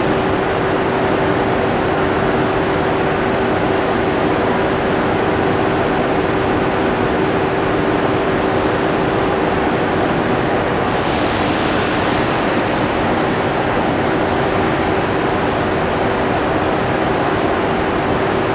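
Thalys TGV high-speed train standing at the platform with its onboard equipment running: a steady drone with a constant hum, echoing in the station hall. About eleven seconds in there is a short hiss that fades over a second or two.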